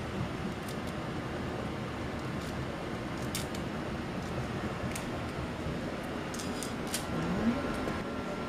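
Faint crackles and clicks of raw shrimp being peeled and handled by hand, a few times, over a steady room hum.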